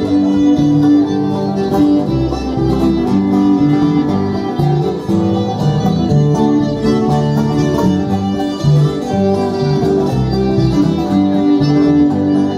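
Bluegrass-style country music with banjo and guitar playing steadily.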